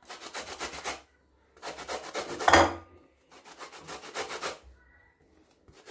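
Lemon rind scraped over a fine metal grater to take off the yellow zest: three bouts of quick rasping strokes, each about a second long, the middle one loudest.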